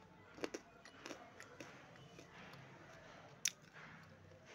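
A person biting and crunching pieces of edible clay with the mouth close to the microphone: a few sharp, crisp crunches, the loudest about three and a half seconds in.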